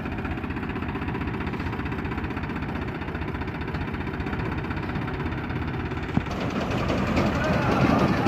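Tractor diesel engine running steadily with a fast even chug; about six seconds in there is a sharp click, then the sound gets louder and rougher.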